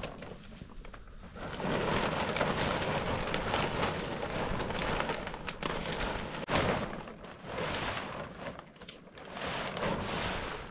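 Rain in a storm: a loud rushing hiss full of crackles that swells and eases, with a sharp crack about six and a half seconds in.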